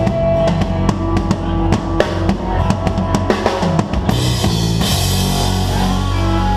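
Live band with the drum kit close up: rapid snare and bass drum strokes in a busy fill, then about four seconds in cymbals crash and ring on over held bass and guitar notes.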